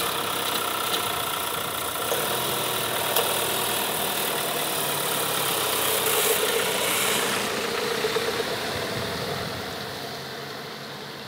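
Ford Transit Custom van's engine running as the van pulls away, fading out over the last few seconds as it drives off.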